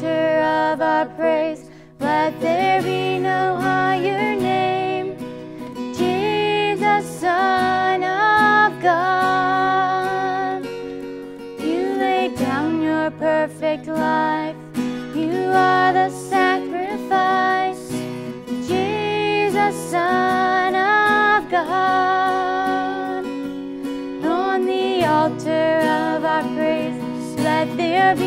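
A woman singing a worship song solo, accompanied by an acoustic guitar.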